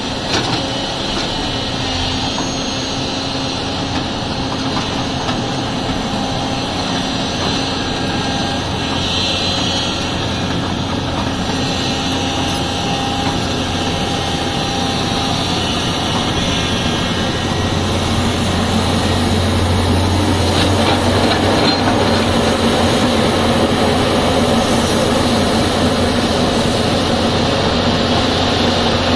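Tata Hitachi excavator's diesel engine running steadily, getting louder a little past halfway as it works harder.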